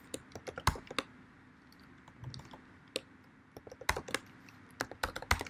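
Keystrokes on a computer keyboard as a password is typed: sharp key clicks in irregular clusters with short pauses between them.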